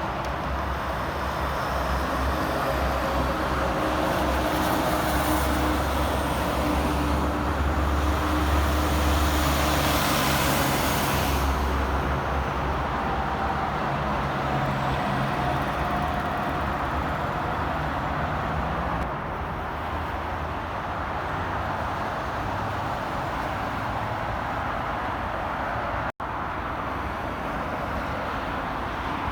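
Interstate highway traffic with a heavy truck's engine passing close, the sound swelling to its loudest about eight to nine seconds in and then easing back to a steady traffic hum.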